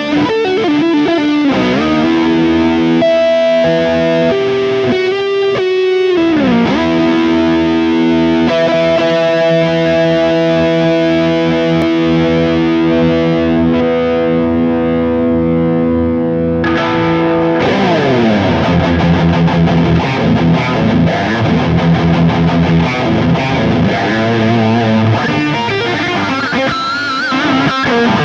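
Old Charvel electric guitar played through heavy distortion. A held note rings on for about thirteen seconds without fading, with pitches sliding downward twice, followed by faster playing.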